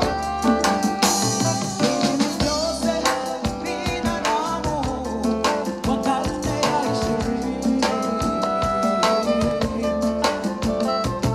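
Music with a steady, driving drum beat and singing over instruments.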